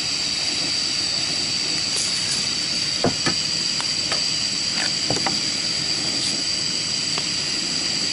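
Propane camp stove burner running at full flame, a steady hiss, with a couple of light knocks about three seconds in.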